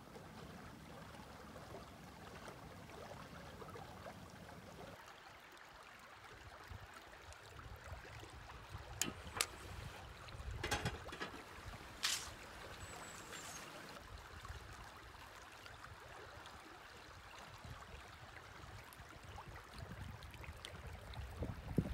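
Creek water running steadily over stones, with a few sharp clicks about halfway through.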